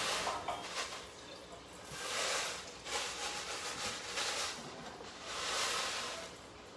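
Dry rice being poured out in several short pours, each a hiss of grains lasting a second or less.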